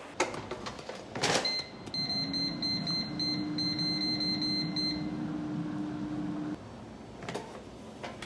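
Air fryer basket pushed shut with a clunk, then the digital touch panel giving a quick run of short high beeps as its buttons are pressed to set it. The fan starts with a steady hum that cuts off suddenly about six and a half seconds in, and a couple of clicks follow as the basket is pulled back open.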